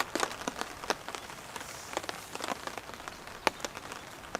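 Rain falling, with irregular raindrops tapping sharply; one tap about three and a half seconds in is louder than the rest.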